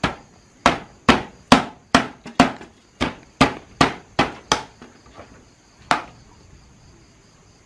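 Fresh bamboo shoots being smashed with a small, heavy knife: about a dozen sharp knocks, two or three a second, breaking off after about four and a half seconds, with one more near six seconds in. Crickets chirr steadily behind.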